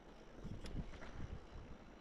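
Wind buffeting the microphone, with irregular soft thumps and one sharp click about two-thirds of a second in.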